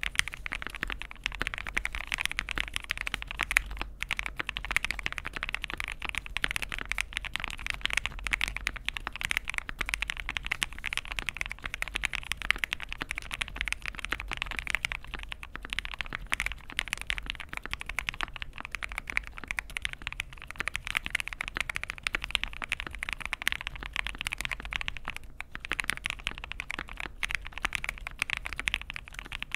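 Fast, continuous typing on a mechanical keyboard fitted with aftermarket keycaps: a dense clatter of keystrokes with a couple of short pauses.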